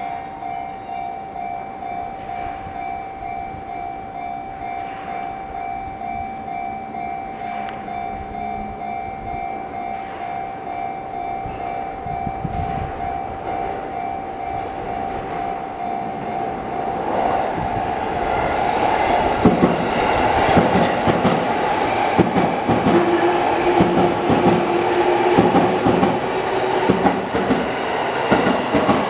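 Japanese railway level-crossing bell, the fairly high-pitched JR standard warning tone, dinging in a rapid, even pulse while the crossing is closed for an approaching train. About two-thirds of the way in, a passing train grows louder and covers the bell, its wheels clacking over the rail joints.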